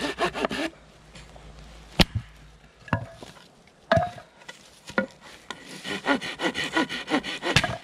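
Folding hand saw cutting a dry branch in quick back-and-forth strokes, which stop just under a second in. A few separate wooden knocks follow about a second apart, then the sawing starts again about 5.5 s in and ends with a sharper knock near the end.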